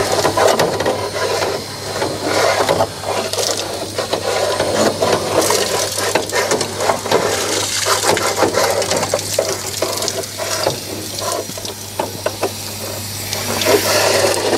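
Water from a garden hose spraying up into a small steam locomotive's ash pan and splashing down onto the ground, washing out ash left after the fire was cleaned out.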